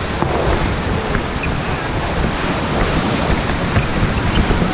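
Loud, steady rush of whitewater churning around a raft in a river rapid, with wind buffeting the action-camera microphone.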